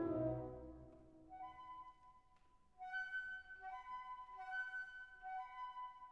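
Background instrumental music: a low held chord fades out in the first second, then a light melody rocks back and forth between two notes.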